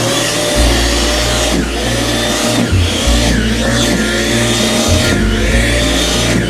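Snow Joe electric snow shovel running as it is pushed into snow. Its motor whine dips and climbs back again about every second, with a steady rush of churned snow.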